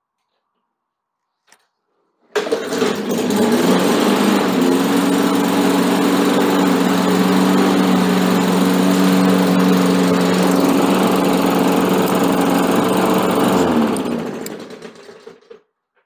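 Briggs & Stratton E-series single-cylinder lawn mower engine catching about two seconds in and running steadily for about eleven seconds. It is then shut off and spins down. It starts and runs on old gas with a freshly cleaned carburettor.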